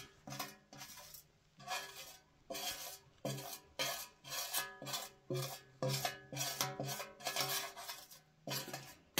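A metal utensil scraping and stirring in a metal cooking pot in regular strokes, about three every two seconds. The pot rings briefly at the same low pitches with each stroke.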